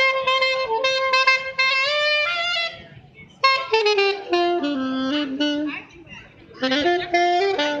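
Saxophone playing a melody in three phrases, with short pauses about three and six seconds in.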